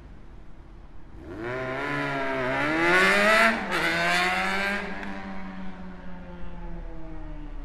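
Motorcycle engine revving hard as it accelerates past. The pitch climbs, drops sharply at a gear change about three and a half seconds in, then sinks slowly as it pulls away. Street traffic hums before and after.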